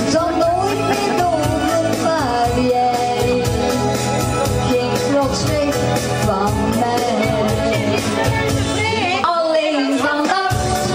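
A woman singing a pop song live into a microphone over a backing track with a steady beat. The bass and beat drop out for about a second near the end, then come back.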